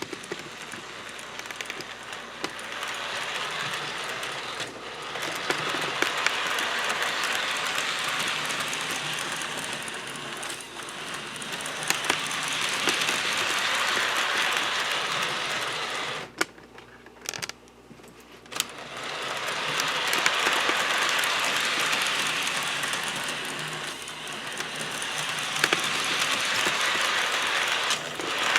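HO scale model train running on its track: the small locomotive's electric motor and gears whir and the wheels roll and click over the rail joints. The owner finds the locomotive running a little stiff. The sound swells and fades several times as the train comes round, and drops away briefly about two-thirds of the way through.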